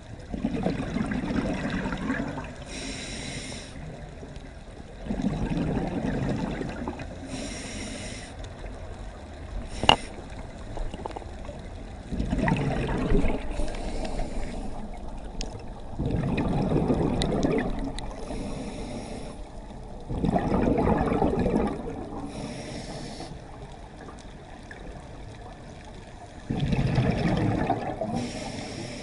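Scuba diver breathing through a regulator: a short hissing inhale followed by a longer burst of bubbling exhaled air, about six breaths in all, with one sharp click about ten seconds in.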